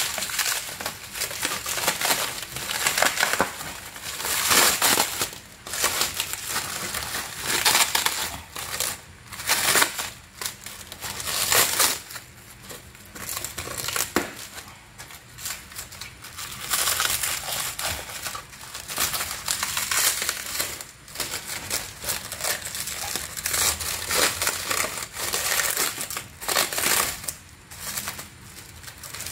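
Clear plastic packaging crinkling and rustling in irregular bursts as it is handled and pulled open around a new fog lamp cover.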